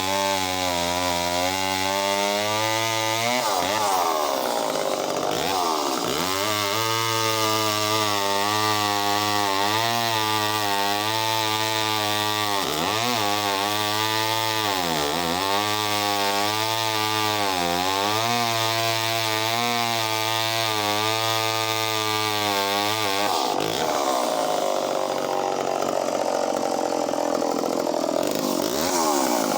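Echo CS-451VL two-stroke chainsaw cutting through wood about 13 to 14 inches thick. Its engine pitch repeatedly sags under load and recovers, rising briefly when the cut eases. About three-quarters of the way through it runs free at higher revs. The owner judges the chain to be in need of sharpening.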